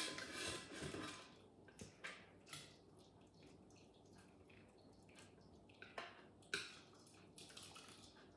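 Spatula scraping thick beef rendang out of a stainless steel Thermomix mixing bowl, with a wet slop of curry dropping into the serving pot at first. After that come a few separate short scrapes and clinks of the spatula on the bowl, the loudest about six and six and a half seconds in.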